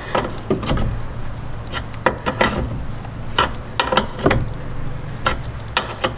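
Open-end wrench clicking and clinking against a threaded cooler-line fitting in a radiator tank as it is worked tight: a dozen or so irregular sharp metallic taps over a steady low hum. The fitting on the new aftermarket radiator was found loose and is being snugged down.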